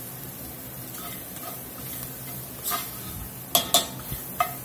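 Diced onion, peppers and ground chili spices sizzling in oil in an enameled cast-iron Dutch oven as the spices toast, while a metal spoon stirs and scrapes them. A few sharp clinks come from the spoon striking the pot, the two loudest close together about three and a half seconds in.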